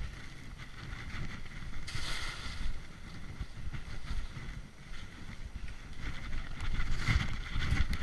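Skis hissing and scraping over snow during a fast descent, with surges about two seconds in and again near the end as the skier turns. Wind buffets the microphone with a constant low rumble.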